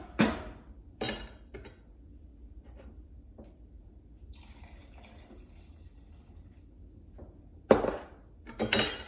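A few knocks of a wooden spoon against a pot, then a cornstarch-and-water slurry poured from a cup into the simmering onion sauce, then two louder clatters near the end.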